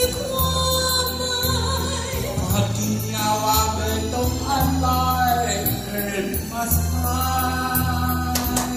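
A Taiwanese Hokkien song sung into a microphone over a karaoke backing track, the melody held in long notes above a steady bass line.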